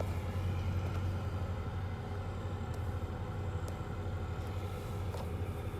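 Engine idling with a steady low drone.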